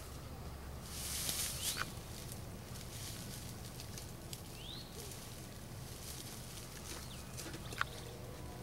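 Outdoor ambience with a steady low hum, a brief rustling scrape about a second in, and a bird giving a few short rising chirps.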